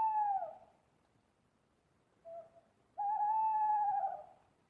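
Owl hooting: a long call fading out in the first half second, a brief lower note about two seconds in, then a second long, slightly wavering hoot from about three seconds in that trails off a little over a second later.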